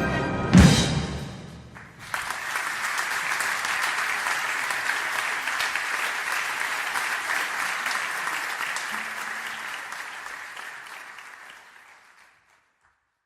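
An orchestral music cue ends on a loud final hit, then applause starts, holds, and slowly fades out over about ten seconds.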